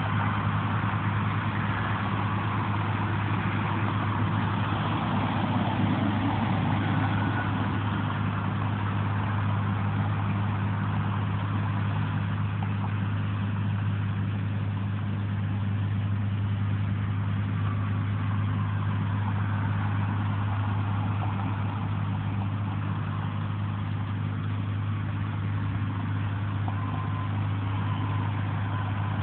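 Road traffic with trucks: a steady low engine hum, with a few vehicles passing and fading now and then.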